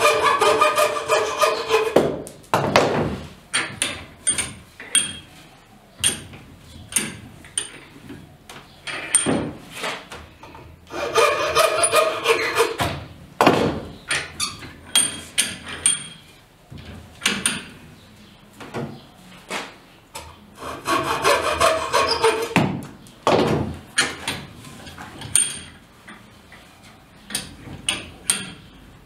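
Wood being worked by hand: three bouts of rapid back-and-forth sawing strokes, each lasting two to three seconds, with short knocks and clicks of wood and tools in between.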